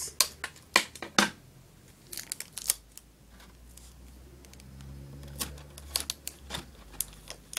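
Hands taping a cardboard cereal box: tape being torn and pressed down, with short sharp clicks and taps from handling the box, loudest in the first second and a half.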